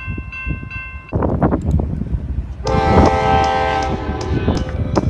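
A diesel freight locomotive's air horn sounds one long chord about halfway through. Before it, a grade-crossing warning bell rings in short repeated strokes for about a second, and a low rumble runs underneath.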